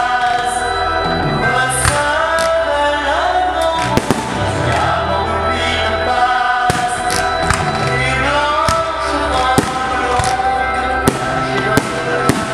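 Music with singing plays throughout, while fireworks go off in irregular sharp bangs every second or so over it.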